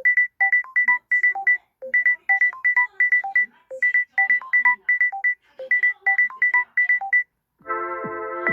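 A Samsung Galaxy S25 Plus ringtone playing: rapid short electronic beeps, mostly on one high note with lower notes mixed in, repeated in four quick phrases. It stops about seven seconds in, and after a short gap the next ringtone begins with sustained chime notes.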